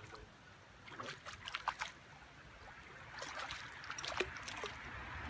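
Water splashing as a hooked bass thrashes at the surface of a shallow river, over the faint wash of the current, with a few scattered clicks. The splashing grows louder about three seconds in.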